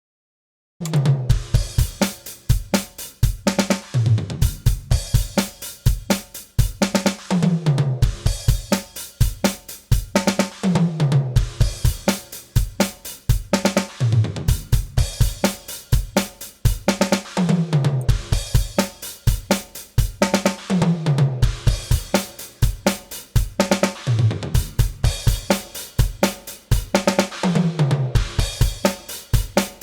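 A DrumGizmo virtual drum kit playing a steady groove of kick, snare, hi-hat and cymbals, starting just under a second in. The room-microphone tracks are being added to the dry kit to simulate mic bleed.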